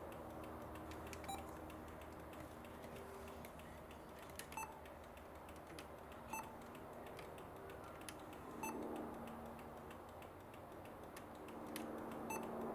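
Aftermarket car radio head unit giving short electronic beeps as its buttons are pressed, spaced irregularly about one to two seconds apart, while a station is being tuned and set. A faint steady hum runs underneath.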